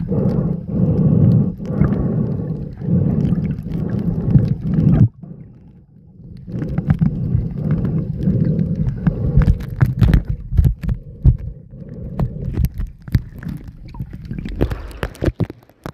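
Muffled underwater water noise picked up by a submerged camera: a low rumbling and gurgling that pulses about once a second, drops away abruptly about five seconds in, then returns with scattered sharp clicks and crackles.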